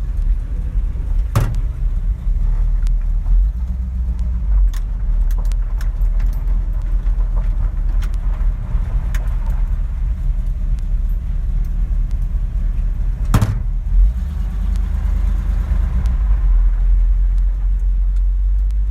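1955 Chevrolet pickup's engine idling steadily, heard from inside the cab, with two sharp clunks, the first about a second and a half in and the second some twelve seconds later.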